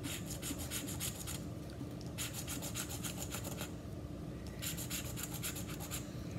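A coin scratching the latex coating off a paper scratch-off lottery ticket in three bouts of rapid back-and-forth strokes.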